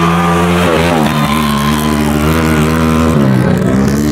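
Dirt bike engine revving hard as it pulls away from a race start. The engine note holds high, dips briefly about a second in, drops about three seconds in and then climbs again.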